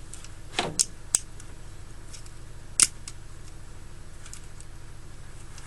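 A few small sharp clicks and taps from handling a pack of lighter flints, mostly in the first three seconds, over a steady low hum.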